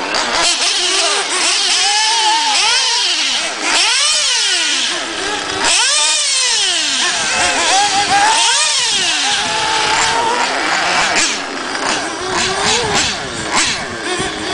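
Several radio-controlled off-road buggies' small engines racing, overlapping high-pitched whines that rise and fall again and again as the cars accelerate and brake around the track.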